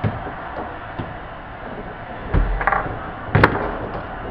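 Ball and rod-mounted players knocking on a foosball table: a few scattered sharp knocks, the loudest a little past three seconds in, over a steady room hiss.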